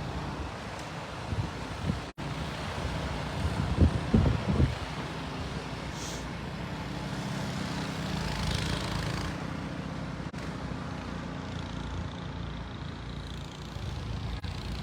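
A motor vehicle's engine running steadily in a low rumble. There are a few loud low bumps about four seconds in.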